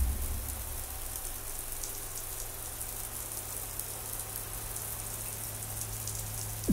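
Ambient passage of a downtempo electronic track: a rain-like crackling hiss over a steady low drone. A deep bass hit falling in pitch lands at the very end.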